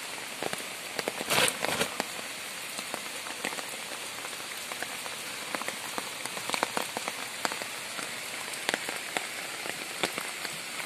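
Steady rain falling, an even hiss with scattered raindrop ticks, and a brief louder rustle about a second and a half in.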